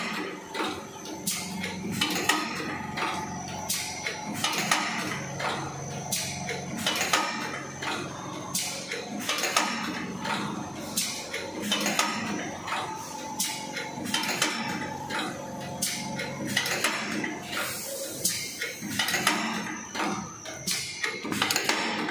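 Paper muffin cup forming machine running, with a rapid, uneven run of metallic clicks and clatter from its forming mechanism over a steady machine hum.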